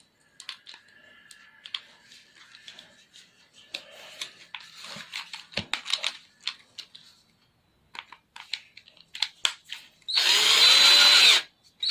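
Clicks and rattles of a bit being changed in a 12 V Black+Decker LD12SP cordless drill/driver, swapped to a flat-head screwdriver bit. About ten seconds in, the drill motor runs once for about a second and a half, spinning up and winding down.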